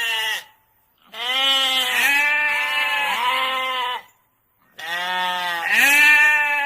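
A farm animal bleating in long drawn-out calls, the pitch bending up and down: one call tails off as it begins, a second lasts about three seconds, and a third starts after a short silence and is still going at the end.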